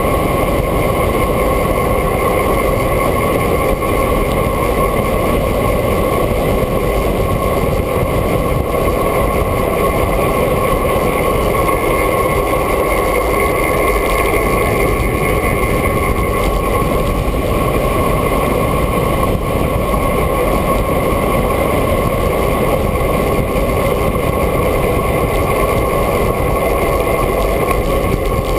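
Steady, loud rush of wind over a camera mounted on a bicycle's handlebars while descending at speed, unchanging throughout.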